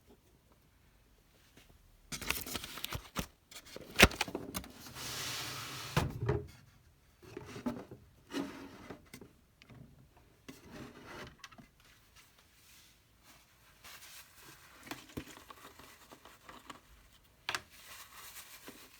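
A rag wiping old thermal paste off the CPU and heat sink with isopropyl alcohol, in irregular rubbing strokes mixed with small handling knocks and clicks. It starts about two seconds in, and one sharp knock about four seconds in is the loudest sound.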